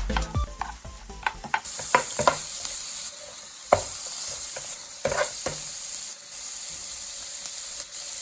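Shrimp frying in butter in a pan, sizzling steadily, with a few sharp clicks of a utensil against the pan. Background music fades out at the start.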